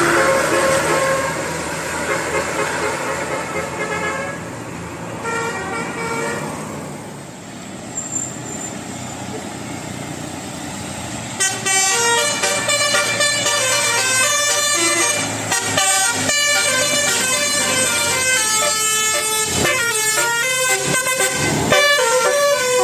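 Bus telolet horn of the basuri type, a multi-tone musical horn, playing a fast melody of short notes. The melody starts about halfway in and keeps going. Fainter held tones and road noise come before it.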